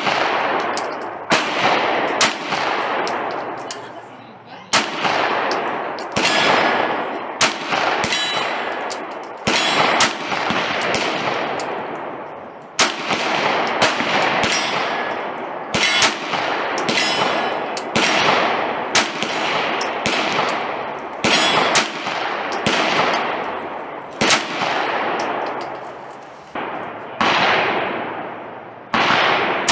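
Pistol shots fired one after another at a steady slow pace, about one a second, each sharp report trailing off in a ringing echo.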